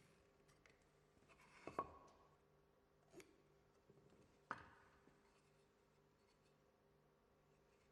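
Faint, sparse knocks and scrapes of hand tools and timber handled on a workbench, with two sharper knocks, one just under two seconds in and one about four and a half seconds in, each ringing briefly.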